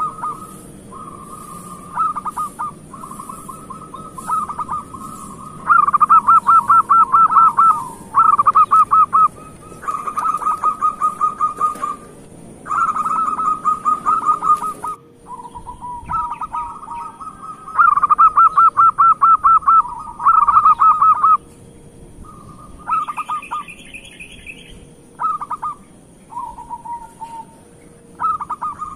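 Zebra dove (perkutut) cooing: repeated bouts of fast staccato trilled coos, each one to three seconds long, with short pauses between.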